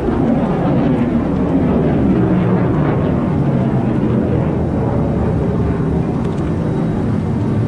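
Loud, steady jet aircraft engine noise.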